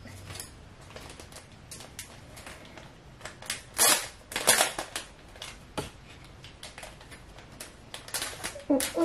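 Plastic packaging and paper photo prints being handled: irregular crinkling and sharp clicks, loudest about four to five seconds in.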